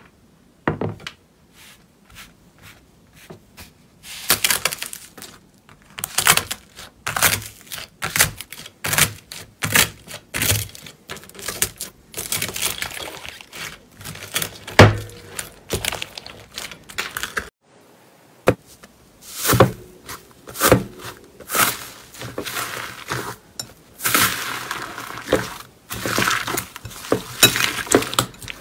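Slime being pressed and squeezed by hand, giving off irregular pops and crackles, with stretches of denser crackling.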